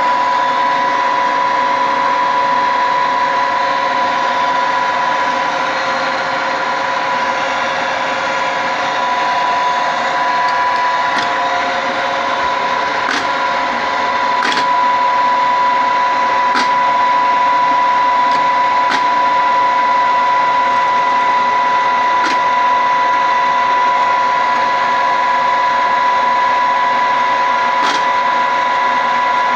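Gambin 11M universal milling machine running: a steady machine hum with a high, even whine, and a few faint scattered clicks.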